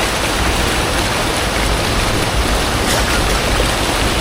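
Steady rushing of a rocky stream, an even, loud wash of water noise.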